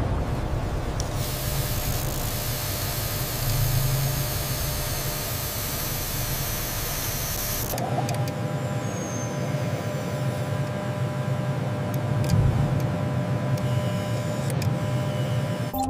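Low machine hum with a strong steady hiss from about a second in. At about eight seconds the hiss stops and the sound changes to a hum with steady tones and scattered light clicks.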